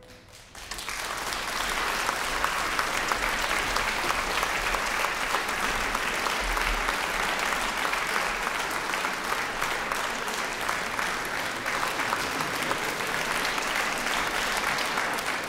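Concert audience applauding, breaking out about half a second in, right after the orchestra's final chord dies away, then running steadily as dense, even clapping: the ovation at the end of a performance.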